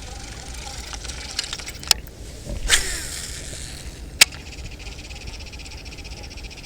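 A fishing cast with a baitcasting reel: a loud swish with a falling whir about two and a half seconds in, among a few sharp clicks, over steady wind rumble on the microphone. A high, steady chorus of frogs or insects comes up after the cast.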